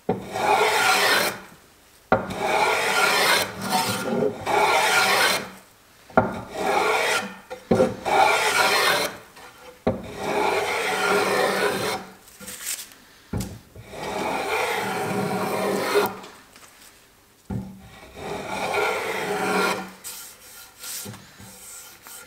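A small hand plane shaving the bevelled edge of a curved wooden rail in long repeated strokes, each a second or two long with short pauses between, taking off the small flat left after machining.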